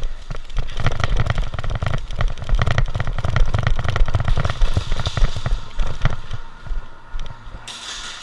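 Airsoft guns firing in rapid, overlapping strings of sharp cracks, with low thumps underneath, easing off in the last second or so.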